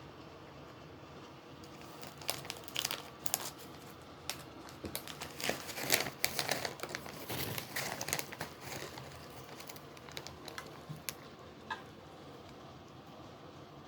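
Packaging crinkling and rustling in irregular crackly bursts over several seconds, densest around the middle, with a few separate ticks near the end.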